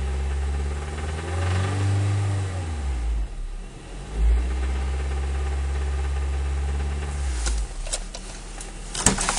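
Acura RSX Type-S 2.0-litre four-cylinder engine idling, revved up about a second and a half in and settling back, with a short blip of the throttle around four seconds in before idling steadily again. The owner says it knocks once at normal operating temperature, audible when revved. A few sharp clicks near the end.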